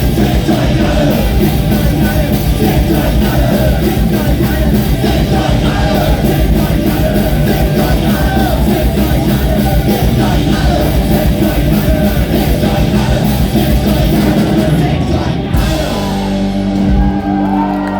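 Live punk rock band playing loud, with shouted vocals over driving drums and distorted guitars. About fifteen seconds in the drums and cymbals stop, and a held guitar chord rings out to close the song.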